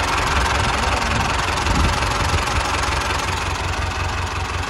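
Ford 5000 tractor engine running steadily at idle, started without a battery.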